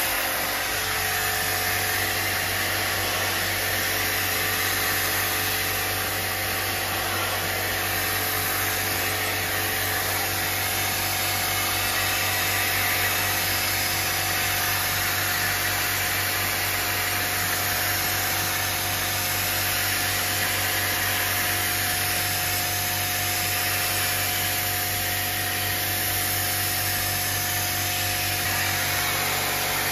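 Portable high-pressure water washer pump motor running steadily with a low hum, its jet hissing as it sprays the fins of a split AC indoor unit during a wet service.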